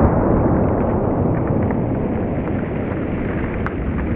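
Steady loud rushing noise, like wind buffeting the microphone, fading slowly, with a few faint ticks scattered through it.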